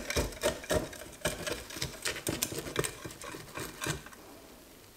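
Knife cutting through a baked cauliflower bake's breadcrumb crust in a glass baking dish: a run of irregular short clicks and scrapes that thins out toward the end.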